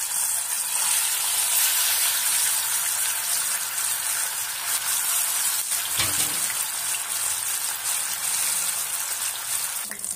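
Rohu fish steaks frying in hot oil in a kadai: a steady sizzling hiss with fine crackles. About six seconds in there is a brief low thump.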